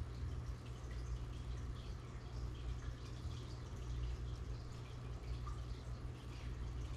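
Aquarium water bubbling and splashing at the surface, a continuous patter of small drip-like plinks, over a steady low hum.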